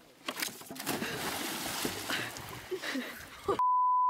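Water splashing and churning as a person plunges into a lake. About three and a half seconds in, a loud steady single-tone censor bleep replaces all other sound for about a second.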